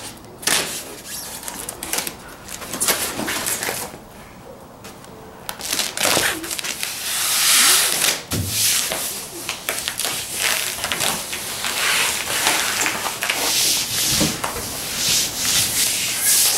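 Hands rubbing and smoothing a sheet of foam padding down onto a car roof: a scratchy rustling made of many short strokes, turning steadier and louder from about halfway in.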